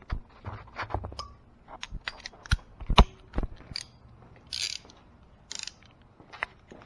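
Hand tools being picked up and handled: a string of sharp clicks, clinks and knocks, the loudest knock about three seconds in, with two short rasping scrapes a little after the middle.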